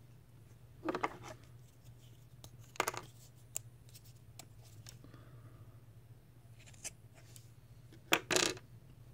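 Handling noises from hands pulling cotton wick through a small metal coil: a few short scratchy rustles and light clicks, the loudest a double scrape near the end.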